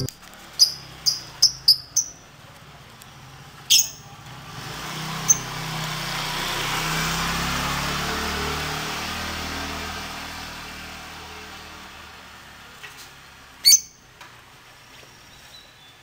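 Caged lovebird giving sharp, high chirps: five quick ones in the first two seconds, single calls about four and five seconds in, and a loud call near the end. Between them, a rush of background noise swells and fades.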